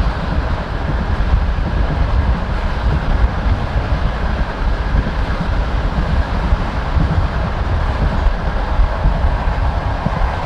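Passenger train carriage running at speed on the rails: a steady low rumble of the wheels and bogies, with wheel knocks over the rail joints, heard from the carriage window.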